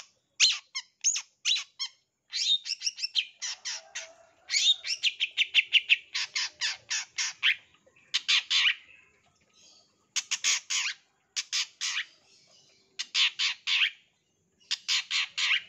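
Long-tailed shrike (cendet) in full song: rapid runs of sharp, harsh notes, several a second, in bursts broken by short pauses. These are the quick 'tembakan' (shot) fill notes that keepers prize in a singing cendet.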